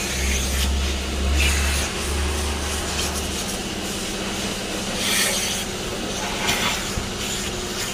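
Cloths rubbing and wiping over a car's dashboard and steering wheel, with a few louder swipes, over the steady whir of a car-wash vacuum machine; a deeper hum drops out about three seconds in.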